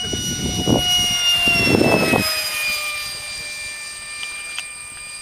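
Electric ducted fan of a radio-controlled F-4 Phantom model jet whining as it flies past overhead. The high whine drops in pitch about two to three seconds in and fades as the jet moves away.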